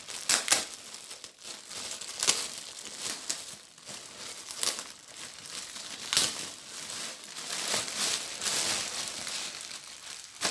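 Thin clear plastic bag crinkling and crackling as it is pulled off a folded cloth by hand, in irregular sharp crackles.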